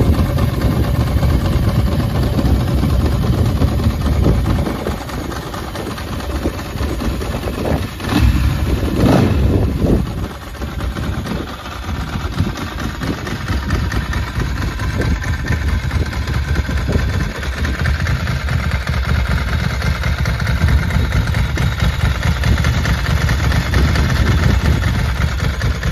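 Ducati MH900 Evoluzione's air-cooled 904 cc V-twin idling with a lumpy, uneven beat, revved up briefly a couple of times about eight seconds in, then settling back to idle.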